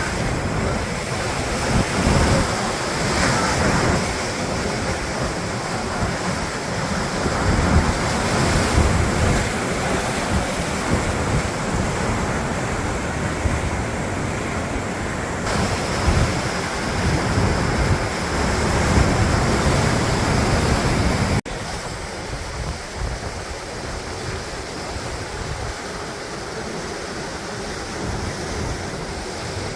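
Sea waves breaking and washing on a beach, with wind buffeting the microphone. About 21 seconds in there is a sudden cut to a slightly quieter stretch of the same surf.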